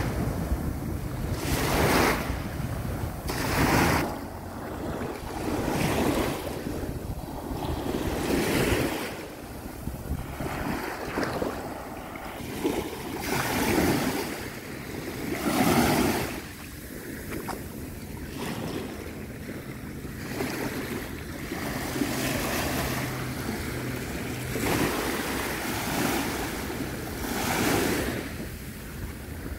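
Small sea waves breaking and washing up on a sandy beach, swelling and fading every two to three seconds, with wind rumbling on the microphone.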